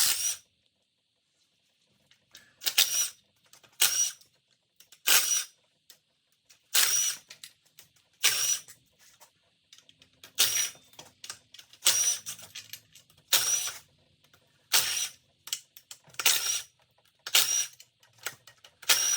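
Ratchet wrench clicking in short bursts, about one stroke every second and a half, as the bolts on the oil pan of a 6.0 L LQ9 V8 are backed out.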